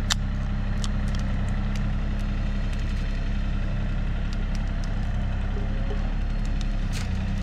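Engine idling steadily with a low, even hum, overlaid by a few sharp clicks or knocks, one right at the start and one near the end.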